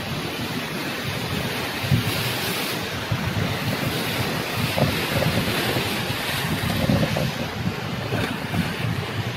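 Ocean surf breaking and washing over shoreline rocks, a steady hiss of moving water, with gusts of wind buffeting the microphone.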